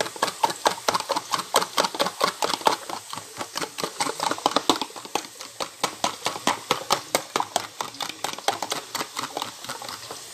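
A metal fork whisking raw eggs in a plastic tub, each stroke clicking against the container in a quick, steady rhythm of several strokes a second.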